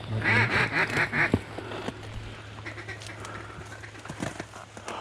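Mallard-style duck quacking: a quick series of about six quacks, followed by fainter quacks about three seconds in.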